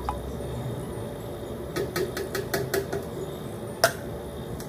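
Small kitchen handling sounds as a little bottle of tea concentrate is emptied into a pitcher and handled at the counter: a quick run of light taps about two seconds in, then one sharp knock near the end.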